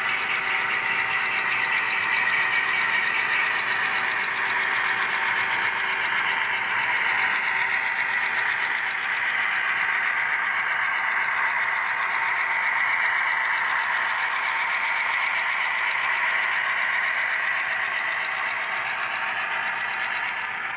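HO scale model train rolling by: a steady, thin diesel-engine sound with a whirring hum that slowly rises and falls in pitch, and a single sharp click about ten seconds in.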